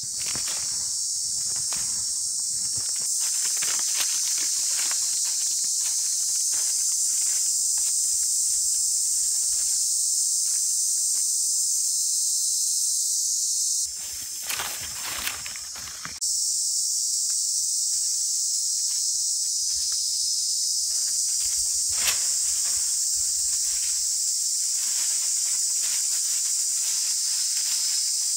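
Loud, steady high-pitched drone of a chorus of insects, which drops out for about two seconds around the middle. Under it come scattered scrapes and knocks of a wooden pole digging into dry soil and leaf litter.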